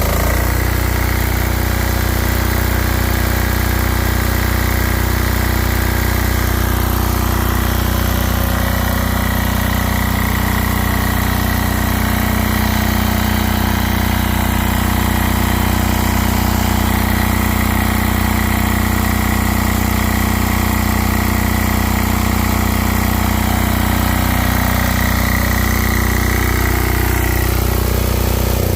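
Generac XD5000E portable diesel generator running steadily at constant speed, with a regular low pulse; right at the end its pitch begins to fall.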